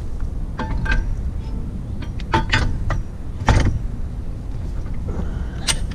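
Steel drawbar clanking and knocking against a tractor's lower link arms as it is fitted by hand: half a dozen sharp metal knocks, the loudest about three and a half seconds in, over a steady low rumble.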